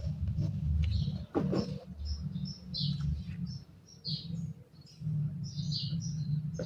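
Small birds chirping repeatedly in short high notes over a low, uneven rumble, with one brief lower-pitched call about a second and a half in.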